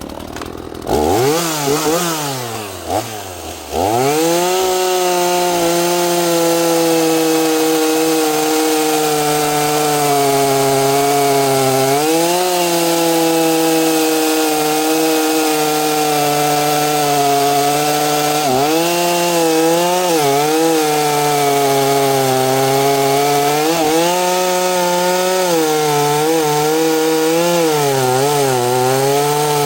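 Small two-stroke chainsaw of about 45 cc revving up in the first few seconds, then held at full throttle cutting through a hard, knotty black oak log, its pitch sagging again and again as the chain bogs in the wood.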